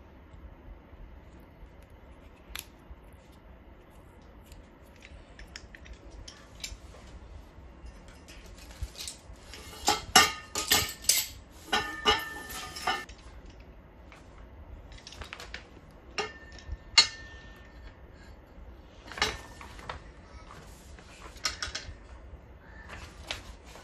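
Steel monitor-stand parts (clamp, knob screws and pole) clinking and knocking together as they are handled, with a quick cluster of sharp metallic clinks about ten seconds in, a short ring after some, and scattered knocks later.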